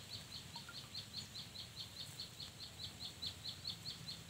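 A high chirp repeating evenly, about five times a second, over a low steady rumble.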